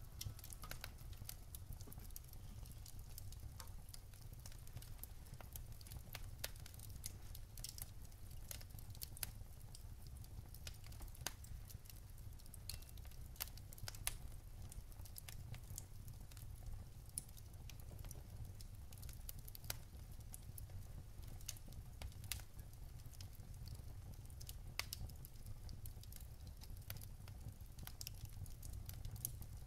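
Wood fire burning in a fireplace, crackling with irregular sharp pops and snaps over a steady low rumble.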